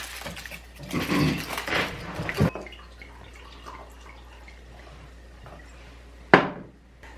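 Handling noises at a meal table: rustling and small knocks for the first couple of seconds, then one sharp knock a little past six seconds in, the loudest sound here.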